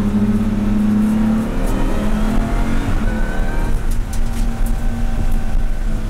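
BMW M235iR race car's turbocharged straight-six heard from inside the cabin, accelerating out of a corner. The engine note climbs, drops at an upshift about halfway through, then pulls on.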